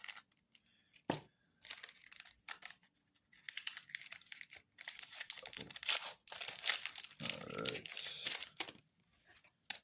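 Foil Pokémon card booster pack wrapper being torn open and crinkled: a run of sharp crackles and rips lasting several seconds.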